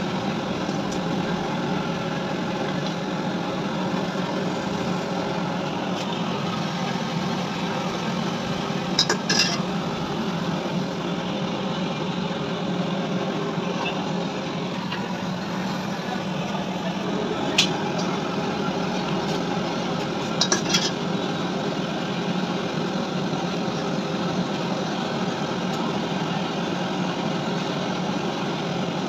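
Steady mechanical hum in the background, with a few short metallic clinks as lead-acid battery plates are handled.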